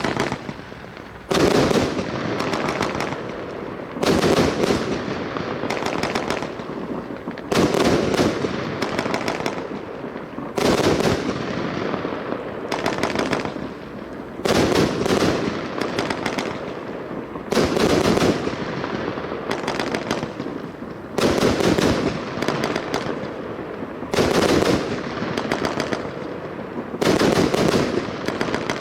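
A 100-shot 26 mm firework cake firing in volleys: a quick cluster of sharp bangs about every three seconds, each trailing off in a fading rush of noise before the next volley.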